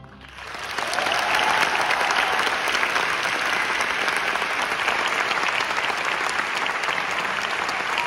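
Concert hall audience applauding. The clapping swells up over the first second and then holds steady.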